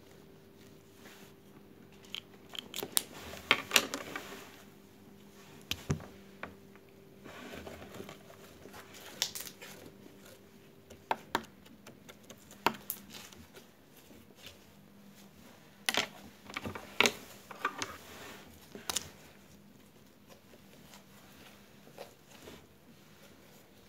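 Pen tips poking and dragging through thick green slime, giving irregular sharp clicks and crackles in short clusters, with quieter squishing between them.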